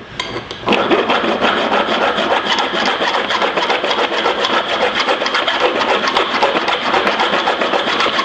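Hand file rasping back and forth in quick, steady strokes over welded aluminium pieces, smoothing down the welds. The filing starts just after the opening.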